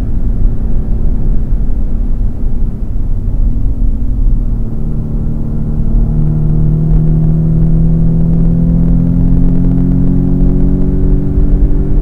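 Audi S3 8VA's turbocharged 2.0-litre four-cylinder engine heard from inside the cabin over a steady low road and tyre rumble. From about halfway the engine note climbs steadily in pitch as the car accelerates hard.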